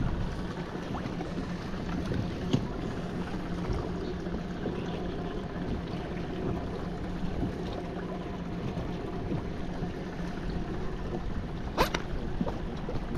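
Steady wind and water noise aboard a small boat, with a low steady hum, and a few light clicks and knocks as a hooked catfish is handled and a lure worked out of its mouth. The sharpest knock comes near the end.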